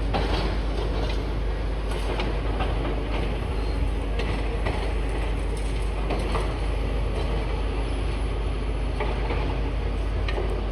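Demolition excavators working: a steady low engine rumble, with scattered sharp knocks and clanks of rubble and metal every second or two.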